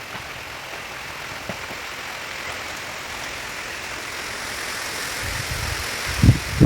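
Rain falling, a steady hiss that grows louder over the last few seconds, with two low rumbling thumps near the end.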